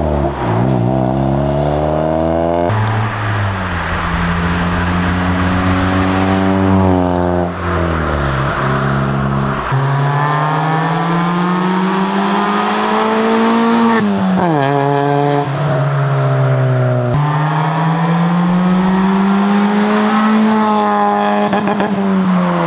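Honda EG Civic hatchback's four-cylinder engine through a cheap fart-can catback muffler, accelerating hard. Its pitch climbs steadily and then drops away, several times over.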